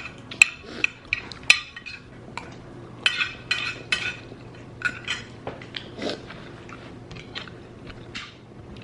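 Metal cutlery clinking and scraping against a plate during a meal: scattered sharp clinks, with a few short scrapes a few seconds in.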